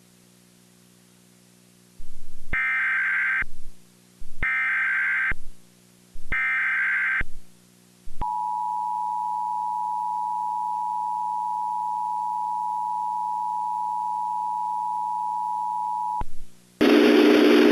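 Emergency Alert System SAME header: three one-second bursts of warbling digital data tones, followed by the EAS two-tone attention signal held steady for about eight seconds, the alert that comes before a tornado warning. A faint steady hum lies under it, and a loud noisy sound starts just before the end.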